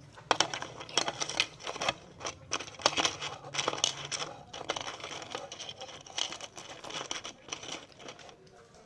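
Plastic snack packaging crinkling as it is handled, with irregular sharp crackles that thin out towards the end.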